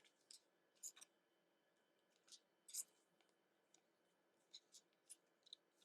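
Faint short swishes and clicks of trading cards being handled and slid against each other, about ten at irregular intervals.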